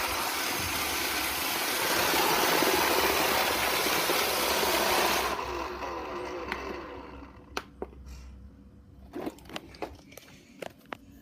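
iRobot Roomba robot vacuum running, a steady whirring noise that cuts off suddenly about five seconds in. After it, a handful of short clicks and knocks.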